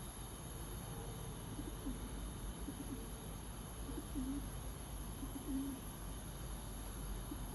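Dove cooing: a series of short, low coos repeated every second or so.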